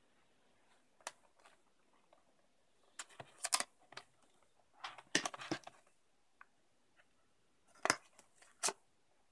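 Packaging being handled: short clicks and crinkling, scraping rustles in a few separate clusters, with quiet gaps between.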